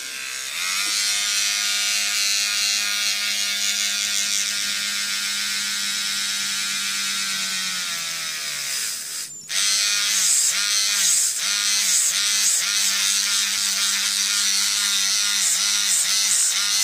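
Vogue Professional 6600 handheld electric nail drill spinning up with a rising whine about half a second in, then running steadily. Past the middle it briefly drops out, then runs louder, its pitch dipping again and again as the bit grinds a hole through an artificial nail tip.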